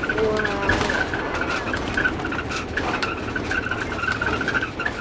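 Vehicle running along the road, a steady rumble of engine and tyre noise with a rapid, even high-pitched chattering rattle over it.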